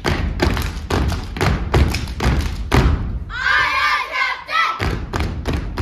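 A children's step team stomping and striking in rhythm on a stage, a fast, steady run of sharp, heavy thuds. A little over three seconds in, the strikes stop for about a second and a half while voices call out, then the stomping starts again.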